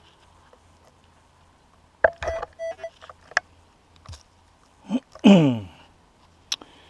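Metal detector giving short, steady beeps as the coil passes over a target, with a few sharp knocks and scrapes in between.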